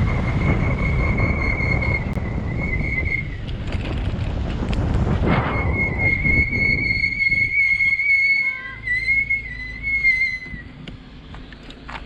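A steady high whistling tone over wind rumble on the microphone. The whistle breaks off for a couple of seconds a third of the way in, returns, wavers in pitch and stops near the end, while the wind noise dies away.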